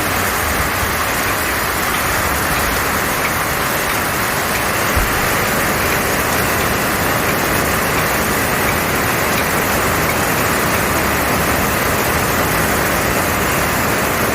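Heavy summer downpour: a steady, even hiss of rain, with a brief low thump about five seconds in.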